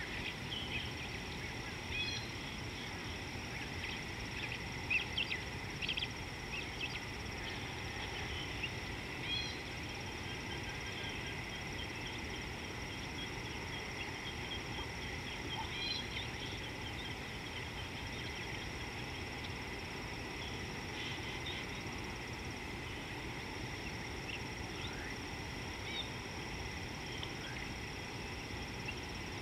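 Outdoor ambience: a steady background hiss and a constant high-pitched tone, with scattered short, high bird calls, most of them in the first ten seconds and a few later on.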